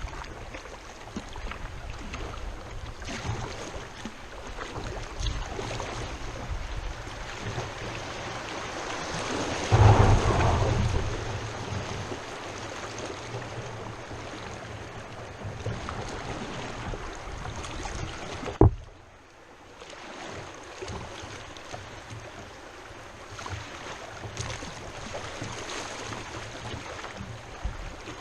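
Kayak moving down a flowing river: a steady wash of water with wind rumbling on the microphone. A loud low gust comes about ten seconds in, and a sharp knock near the 19-second mark is followed by a quieter stretch.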